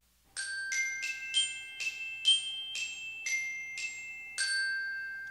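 Short glockenspiel-like bell jingle: about ten struck notes in a quick, steady melody, the last one ringing out and fading away.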